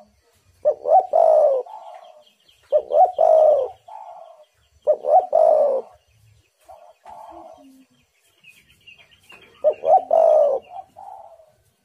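Spotted dove cooing: four loud multi-note coo phrases about two seconds apart, with softer coos in between. Faint high chirping of small birds runs behind.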